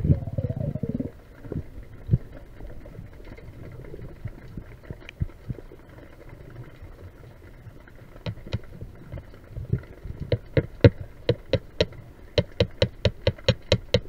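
Underwater sound: a low rush of water for the first second, then quiet until a run of sharp clicks begins, a few at first and quickening to about five a second near the end.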